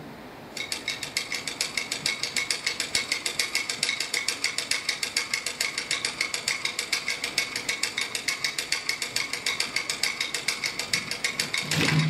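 Rapid, evenly spaced clicking in a steady rhythm of about six clicks a second, starting about half a second in. It comes from the dance's sound accompaniment.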